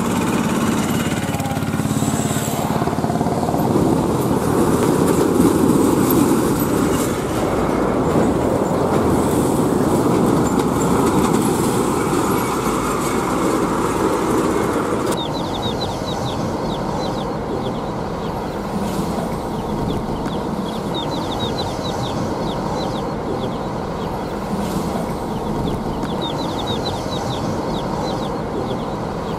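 Road noise of heavy container lorries passing on a highway: engine and tyre noise, louder in the first half. After an abrupt change about halfway the road noise is steadier and carries repeated high chirps.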